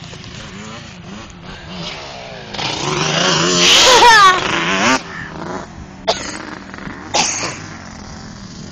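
ATV engine running, revving up and down with a loud swell a few seconds in, over a steady low engine drone. Two short sharp sounds come near the end.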